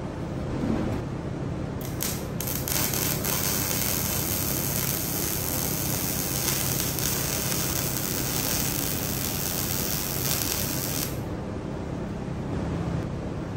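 MIG welder arc crackling and hissing as it lays a bead on a steel seat bracket. It starts with a couple of short stabs about two seconds in, then runs continuously for about nine seconds before cutting off. A steady low hum runs underneath throughout.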